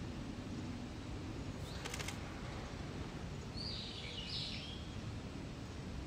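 A Japanese pygmy woodpecker nestling gives one short, harsh call about three and a half seconds in. A steady low rumble runs underneath, with a few faint ticks about two seconds in.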